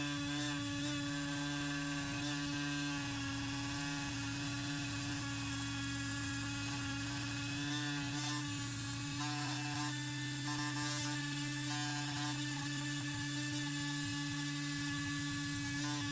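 Dremel rotary tool running steadily with a wire brush on the metal of small pliers, a constant high-pitched whine whose upper tones shift a little now and then.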